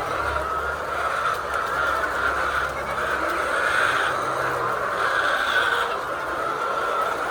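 A flock of many hens clucking and calling at once, a dense steady chorus that swells a little in places.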